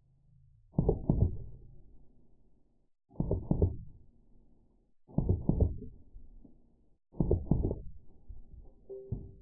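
Slowed-down sound of Drozd Blackbird BB guns firing short bursts, heard as low, deep thuds: four bursts about two seconds apart, each a quick cluster of a few shots that trails off.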